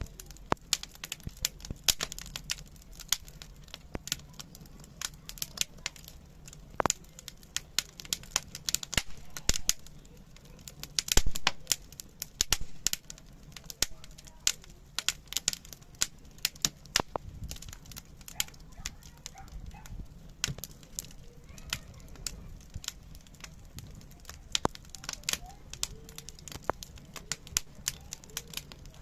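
Wood fire crackling: irregular sharp pops and snaps over a low steady rumble, with a few louder pops, the loudest about eleven seconds in.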